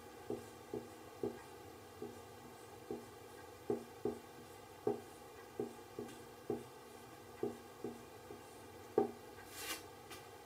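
Marker pen writing kanji on a whiteboard: short, irregular taps as the tip meets the board stroke by stroke, with one brief scratchy stroke near the end.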